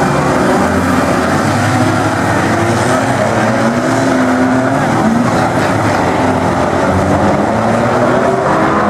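Several unlimited banger race cars' engines running at once as the pack laps the track, their engine notes at different pitches rising and falling against each other.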